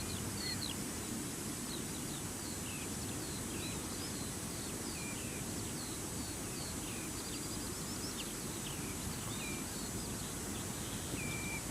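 Birdsong: a quick, continuous run of short, varied high chirps and whistles over a steady outdoor background.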